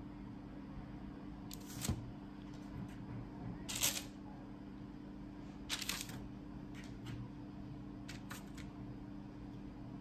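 Pieces of cut scone dough set down one at a time on a parchment-lined baking tray: about five short taps and crinkles of the baking paper, the loudest near the middle. A steady low hum lies underneath.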